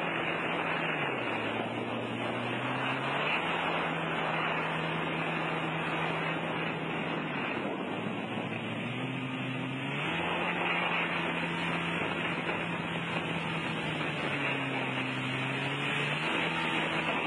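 Personal watercraft (jet ski) engine running under way while towing a wakeboarder, its pitch dropping and climbing back again three times as the engine slows and picks up. Underneath is a steady rush of spray and wind.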